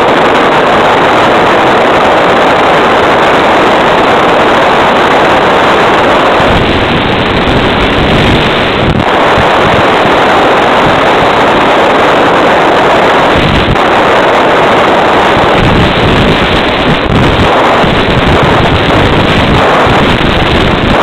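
Steady rush of wind over a gliding FPV model plane's onboard microphone, its motor drawing almost no power, heard through the analog video downlink, with a few brief breaks in the noise.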